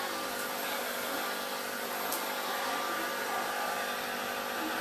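Hair dryer running steadily: a constant motor hum with air rushing.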